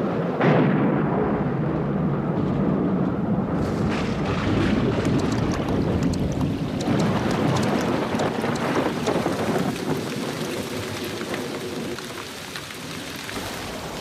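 Thunder rumbling, then steady heavy rain falling onto water, with many sharp drop ticks.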